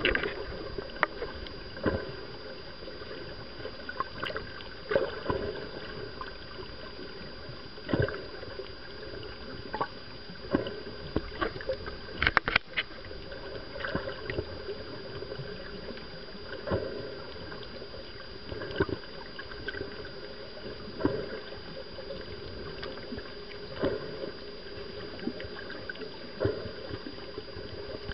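Underwater ambience picked up by a camera in the water: a steady rush of water with a faint constant whine, broken by irregular knocks and clicks every two to three seconds and a quick cluster of them about twelve seconds in.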